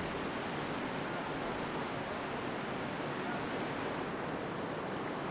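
Steady rushing of a flowing river, an even wash of water noise that holds at one level.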